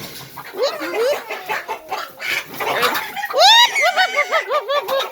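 Agitated chickens squawking and cackling in a run of rising-and-falling calls, loudest about three and a half seconds in.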